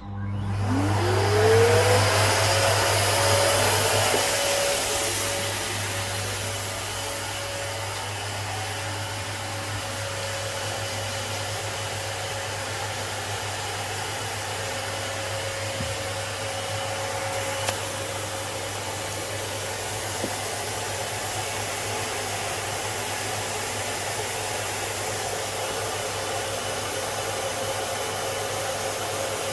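An electric motor starts, its whine rising quickly in pitch and then running steadily at one speed with a rushing air noise. It is loudest for the first few seconds, then settles.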